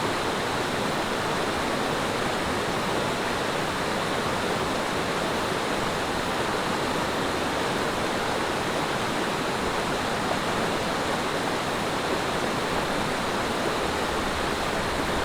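Mountain valley stream, its water rushing steadily without a break.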